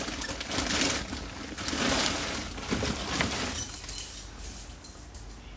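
Coat fabric rustling and rubbing against the phone's microphone, then a sharp metallic clink about four seconds in as a metal locker is handled.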